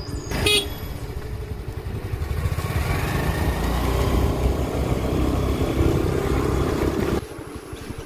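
Scooter engine running with wind and road noise while riding. It grows louder over several seconds, then drops away sharply about seven seconds in, with a brief high tone just after the start.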